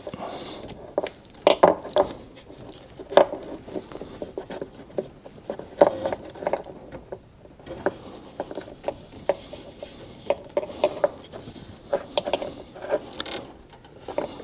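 Hands working with wiring, a plastic connector and tape: irregular small clicks and taps with rustling in between.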